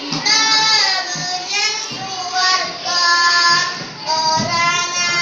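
A young boy singing solo, unaccompanied, in a high voice. He sings in melodic phrases with long held and gliding notes, with short breaks between phrases.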